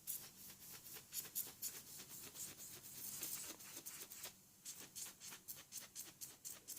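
Faint, rapid scratching strokes of a patch-kit sanding tool rubbing the rubber inner tube around the puncture, roughening it so the patch will hold firmly.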